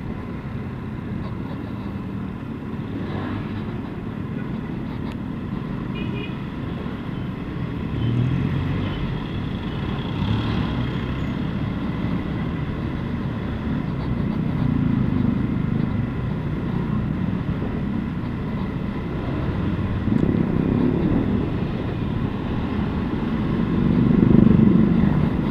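Motorcycle engine running while being ridden, a steady low rumble that swells louder several times, most strongly near the end.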